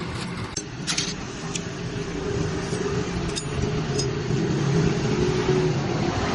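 A motor-driven workshop machine running steadily, with a low hum and a held tone, and a few sharp ticks about a second in and again three to four seconds in.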